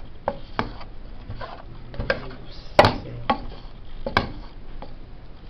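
Irregular light knocks and clicks of utensils and a frying pan being handled, about eight in all, the loudest a little past the middle.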